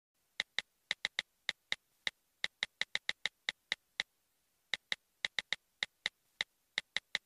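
iPhone on-screen keyboard click sounds, one short tick per key tap, coming at an uneven typing pace with a brief pause about four seconds in.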